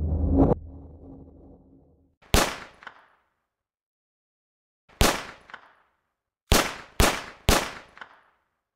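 A low rumbling drone swells and ends in a sudden hit, then five sharp bangs: two a few seconds apart, then three in quick succession about half a second apart, each dying away quickly.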